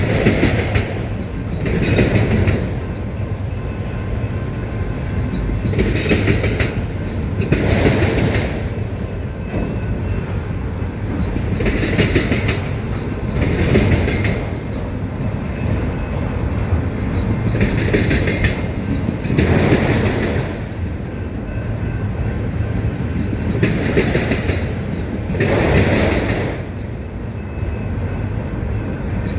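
Freight train of autorack cars rolling past, with a steady rumble and wheel clatter over the rail joints. The clatter comes back in pairs about two seconds apart, a pair every six seconds or so.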